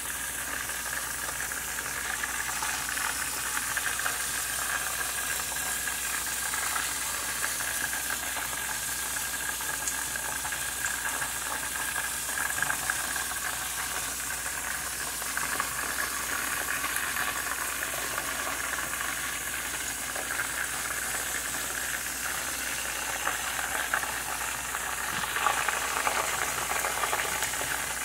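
Breaded chicken wings frying in olive oil in a pan, a steady sizzle and crackle, with a few brief louder clicks.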